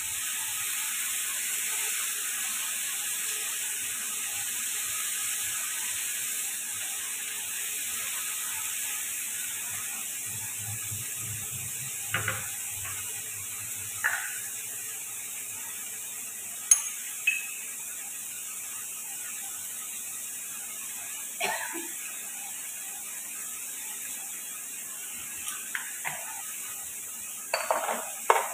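Diced potatoes and tomato frying in oil in a pan, a steady sizzling hiss, with a few sharp clicks and knocks scattered through it, the last ones bunched together near the end.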